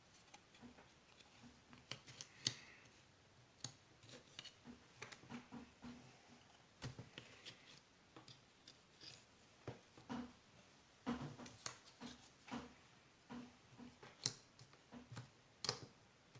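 Puzzle pieces being handled and fitted together: scattered, irregular light clicks and taps, a few of them sharper and louder.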